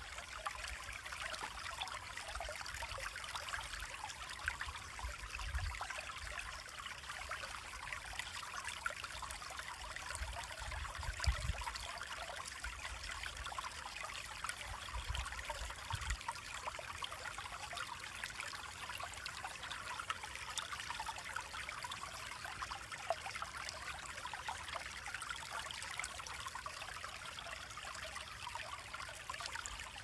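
Shallow creek trickling over a rocky bed: a steady, fine babble of small splashes. A few brief low rumbles come in during the first half.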